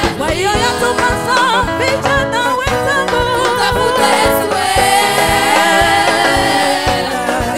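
Gospel choir singing into handheld microphones over backing music with a steady drum beat; a long held note about two-thirds of the way through.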